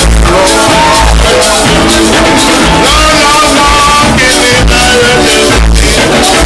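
Loud live rake-and-scrape band music, with electric guitar and electric bass guitar playing a repeating bass line.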